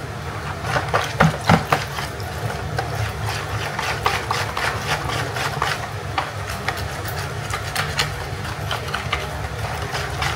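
Stainless steel wire whisk beating thick batter in a plastic bowl: fast, irregular ticking and scraping of the wires against the bowl, with a few louder knocks about a second in, working out the lumps. A low steady hum runs underneath.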